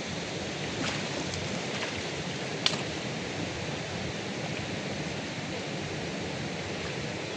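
Steady rushing noise of moving water, with a couple of faint clicks and one sharper click a little under three seconds in.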